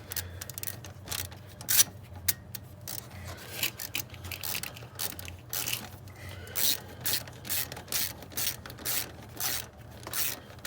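Hand ratchet wrench clicking in short repeated strokes, settling into about two strokes a second in the second half, as the thermostat housing bolts are snugged down.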